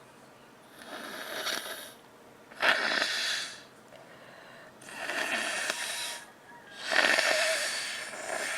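A person blowing a nose congested by a cold into a tissue: four long blows in a row, each lasting a second or more.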